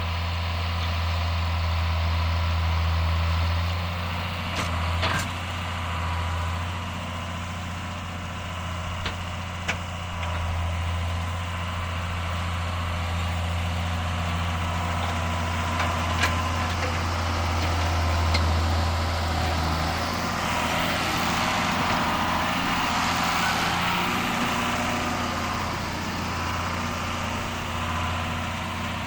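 John Deere 7610 tractor's six-cylinder diesel engine running steadily, with a few sharp knocks and rattles. About twenty seconds in the engine note shifts and a rushing noise rises and falls for several seconds.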